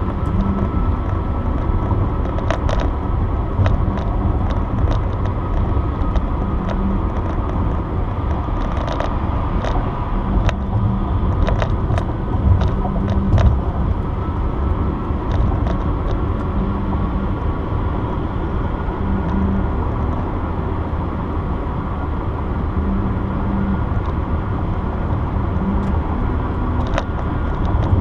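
Steady road and tyre noise heard inside a car cruising at highway speed, a continuous low rumble with a faint steady whine, broken by scattered light ticks and rattles.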